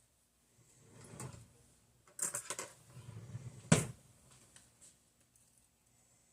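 Kitchen handling noises as a pan is readied with coconut oil: a soft rustle, a cluster of clicks and scrapes, then one sharp knock a little under four seconds in.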